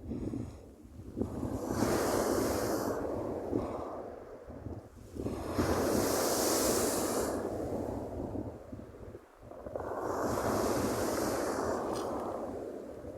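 Waves breaking on the shore: three surges, each swelling and washing out over a few seconds, with wind rumbling on the microphone underneath.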